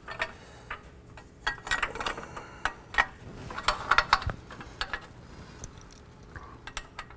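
Irregular metallic clinks, taps and knocks of steel exhaust parts and hand tools being handled while a turbo Y-pipe is fitted to the exhaust headers, thickest in the middle of the stretch, with one duller knock.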